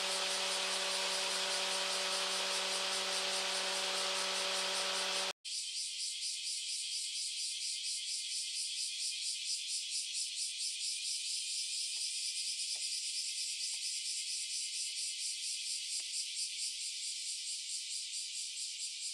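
A steady hum with hiss that cuts off abruptly about five seconds in, followed by a fast, even insect-like chirping, a few pulses a second.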